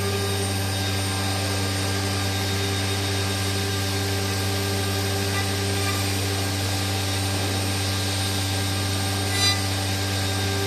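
CNC woodworking router running steadily: a constant motor hum under a broad hiss, typical of the spindle machining wood. A brief click sounds near the end.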